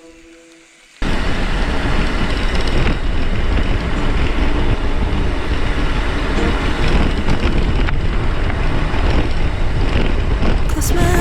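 About a second in, a loud, steady rush of wind on the camera microphone and tyre rumble begins, from a mountain bike riding fast down a gravel forest road.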